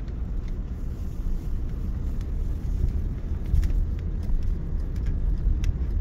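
Steady low rumble of road and engine noise heard inside a moving car's cabin.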